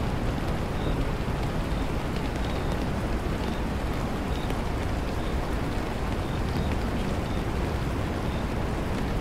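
Steady rain ambience, an even rushing with a low rumble underneath and no change in level.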